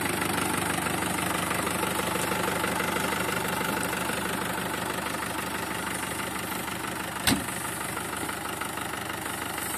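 Arbos 3055 tractor's diesel engine idling steadily, with a single sharp knock about seven seconds in.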